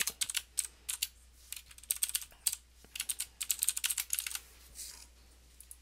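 Typing on a computer keyboard: quick runs of keystroke clicks with short pauses between them, dying away about a second before the end.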